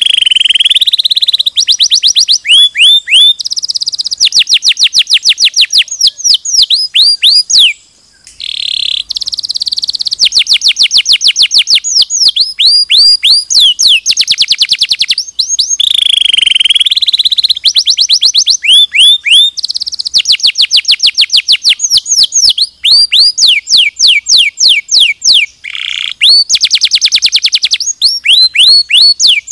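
Domestic canary singing a long, continuous song made of fast trills: runs of rapidly repeated notes alternating with quick sweeping whistles. The song breaks off briefly about eight seconds in, and again briefly later on.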